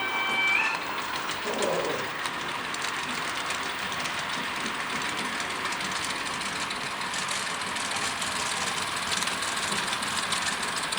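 Model trains running on a layout: a steady hiss with faint ticking, and a brief high tone that glides up and stops about half a second in.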